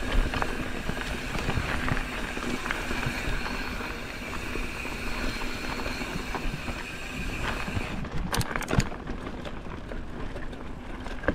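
Bicycle being ridden on a trail: steady riding noise, with a few sharp knocks or rattles about eight seconds in.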